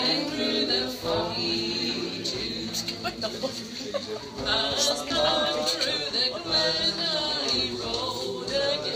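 A group of people singing a folk song together, men and women, with no instruments to be heard.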